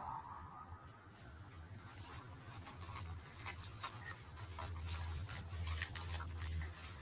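Faint scattered crinkles and small tearing clicks as a person bites and gnaws at a large, thin, bumpy sheet held to his mouth, over a low rumble that strengthens from about four seconds in.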